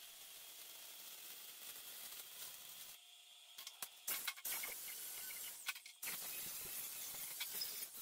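Electric arc welding on steel: the steady crackling hiss of the arc for about three seconds, a short pause, then more runs of the same hiss, the last starting about six seconds in.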